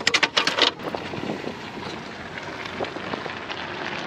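A few sharp clattering noises in the first second, then the steady hiss of a gas camping stove burner under a cast-iron pot.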